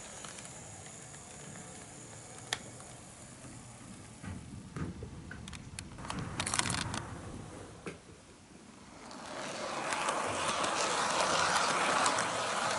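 HO-scale model train rolling on Kato Unitrack, heard close up from an on-board camera car: a steady rattling clatter of wheels over the rails and track joints that swells in about nine seconds in. Before it, scattered quieter clicks and taps.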